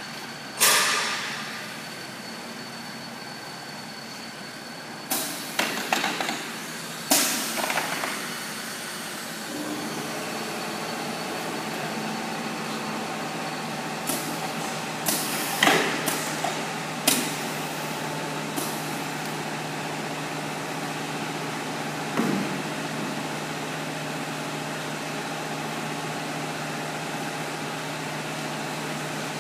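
Vertical four-corner CNC PVC window welding machine working through a cycle: its pneumatic cylinders clack and hiss in bursts as the clamps and welding heads move. A steady mechanical hum sets in about ten seconds in.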